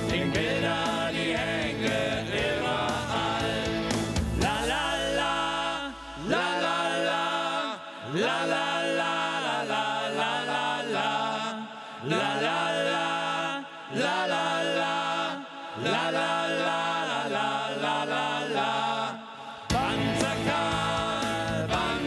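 A band playing a song: a full band with drums and bass at first, then a break where the drums and bass drop out and a melody runs on in repeated phrases about every two seconds, before the full band comes back in near the end.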